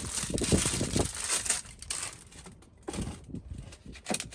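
Crinkling and crackling rustle of foil-backed butyl sound-deadening mat being handled and its sticky backing worked loose, dense for the first second and a half, then a few quieter rustles and clicks.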